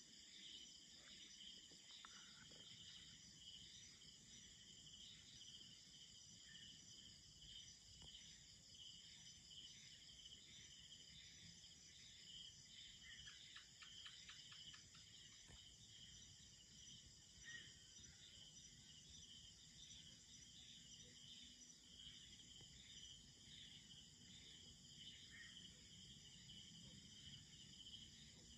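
Faint night insect chorus: steady, high-pitched, pulsing chirring of crickets, with a short run of quick chirps from another animal about halfway through.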